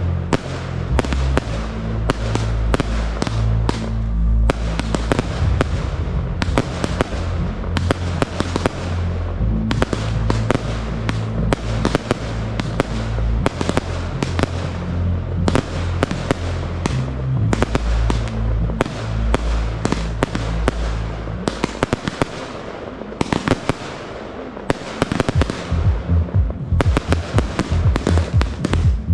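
Fireworks display: aerial shells bursting and crackling in quick succession over a music soundtrack with a deep bass line. The music drops out about 22 seconds in, and a dense run of sharp crackling bursts fills the last few seconds.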